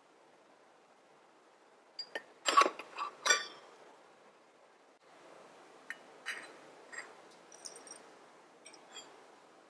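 Miniature stainless-steel pot and bowl clinking against each other: a quick run of bright metal clinks about two seconds in, then softer scattered taps over a faint hiss.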